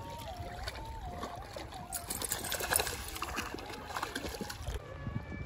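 Water trickling and splashing, with a crackly patch in the middle, over a faint wavering tone that stops near the end.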